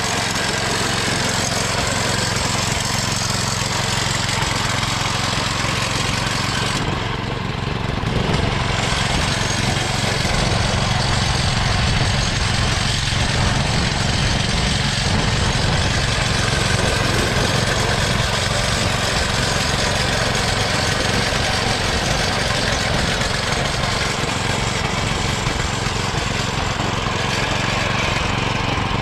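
Small lawnmower-tractor engine of a home-built race mower running steadily; about eight seconds in its note changes and it runs a little louder.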